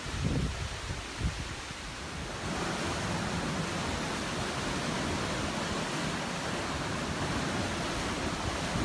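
Wind buffeting the microphone in low rumbles for the first two seconds or so, then a steady even rush of wind and sea surf from about two and a half seconds in.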